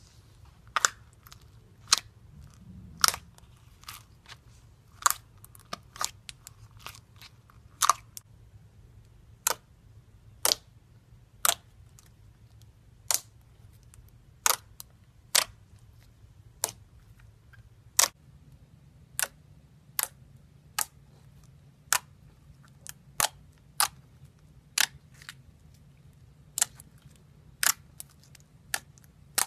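Pink fluffy slime pressed and folded by hand, giving sharp, irregular pops and clicks about once a second as trapped air pockets burst.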